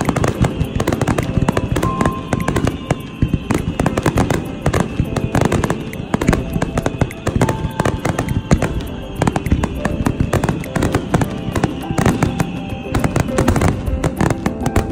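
Fireworks display in a rapid, continuous barrage of many overlapping bangs and crackles, with music playing alongside.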